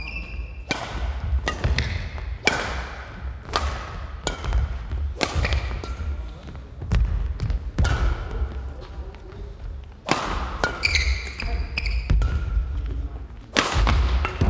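Badminton rally: racket strings striking a shuttlecock about once a second, each crisp hit echoing, with shoes squeaking and feet thudding on the court floor.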